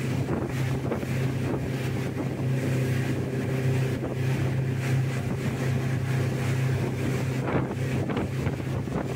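A motorboat's engine running at a steady pitch, with wind buffeting the microphone.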